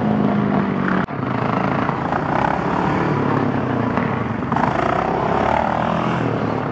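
Quad (ATV) engine running and revving, its pitch rising about four and a half seconds in. The sound breaks off briefly about a second in.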